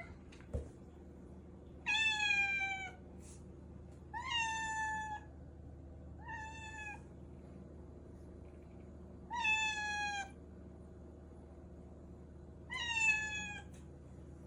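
A calico kitten meowing five times, a second or two apart. Each meow is short, high-pitched and falls slightly in pitch.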